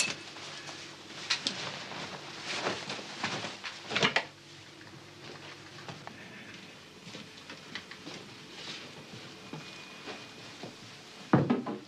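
Light handling and movement noises: rustling and a few soft knocks over the first few seconds, then quiet room tone.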